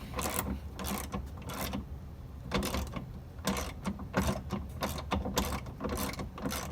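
Socket ratchet wrench clicking irregularly, with knocks of metal on metal, as 10 mm bolts on a car door's window regulator are loosened.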